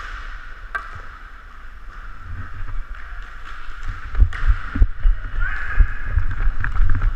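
Roller-hockey skating heard through a helmet-mounted camera: a steady hiss with rumbling thumps and buffeting from the skater's own movement, growing stronger from about four seconds in, and a few sharp clacks.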